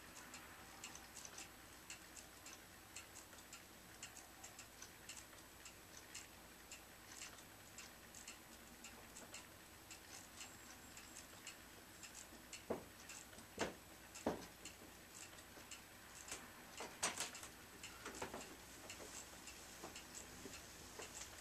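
Faint ticking from a quartz wall clock movement reprogrammed with an ATtiny85 microcontroller to tick at random: the ticks come at uneven spacing, some in quick runs and some after pauses, while the clock still keeps accurate time overall. A few louder clicks stand out a little past the middle.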